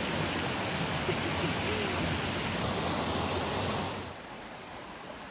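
Mountain stream rushing over rocks, a steady even wash of water noise that drops to a quieter level about four seconds in.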